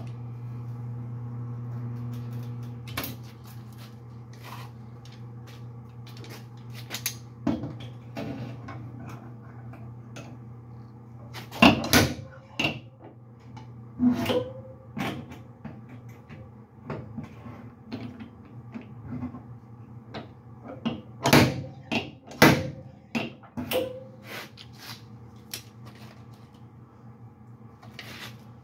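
A stud-welder dent puller humming, with a series of sharp clicks and knocks as pins are welded onto a dented pickup box side and worked; the loudest knocks fall about halfway through and again near two-thirds of the way in.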